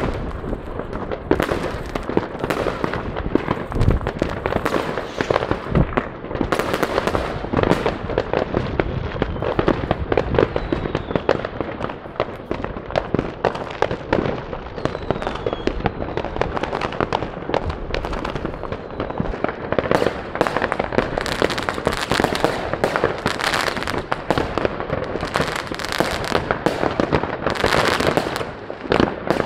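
Many fireworks going off at once all across town: bangs and crackling follow one another continuously, with no pause.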